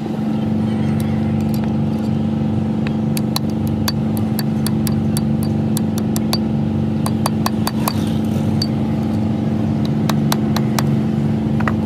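An engine running at a steady speed, with many sharp metallic clinks of tools or parts knocking on metal scattered over it, thickest in the second half.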